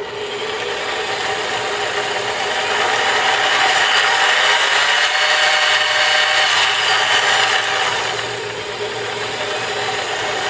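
Enco 7" x 10" variable-speed mini bench lathe running in its low speed range, motor and gear train turning steadily. It builds up over the first few seconds, then holds steady with a slight dip near the end.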